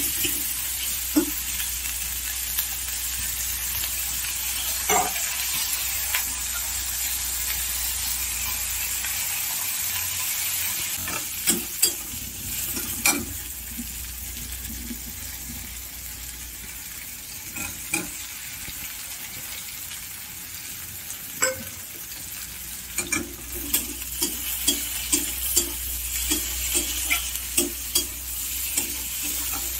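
Onions and green peas sizzling in oil in a metal kadai while a metal spatula stirs and scrapes, clinking against the pan now and then. The clinks come thick and fast in the last several seconds, once paneer cubes are in and being tossed.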